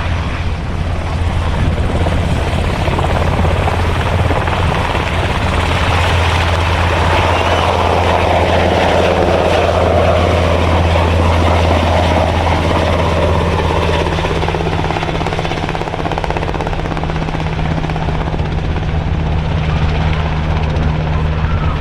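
Helicopter running, with its steady low rotor and engine sound; it is loudest about halfway through and eases off a little near the end.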